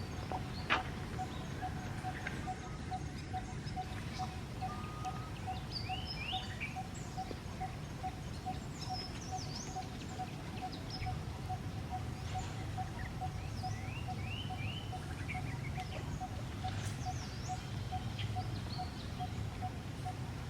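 Outdoor natural ambience: small birds chirping in short, scattered calls over a steady low rumble, with a faint note pulsing evenly about two or three times a second.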